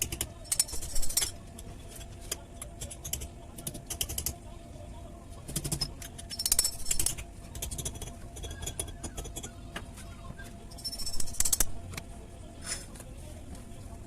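Metal tools and parts clinking and rattling in several short bursts, typical of hands-on work on an engine crankshaft and its ball bearing.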